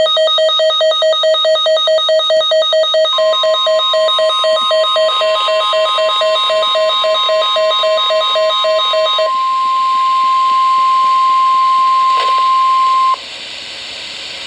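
NOAA Weather Radio warning alarm: a rapidly pulsing beep, joined about three seconds in by the steady single-pitch 1050 Hz alert tone. The beeping stops partway through and the alert tone holds for about ten seconds, then cuts off suddenly, leaving radio hiss. The alert tone is the signal that a warning message is about to be broadcast.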